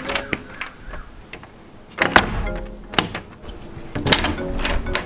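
Background music: pitched notes over sharp percussive hits about once a second.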